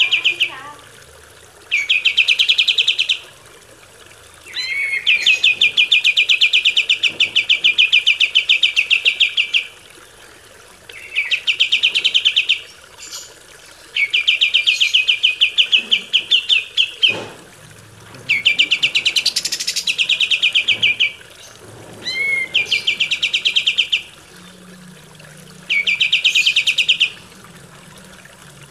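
Kapas tembak (a bulbul) singing: repeated bursts of a fast, rattling high-pitched trill, each lasting one to four seconds, with short pauses between.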